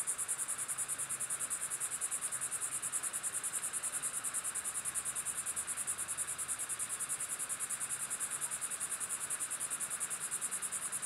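Insects, crickets by their sound, keep up a steady, high-pitched chirring chorus with a fast, even pulse.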